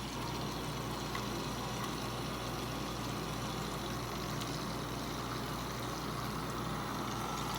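Small motor of a mini toy washing machine running steadily with water in its drum. The sponge inside has grown too heavy with water for the drum to turn, which the owner takes to be the reason it has stopped spinning.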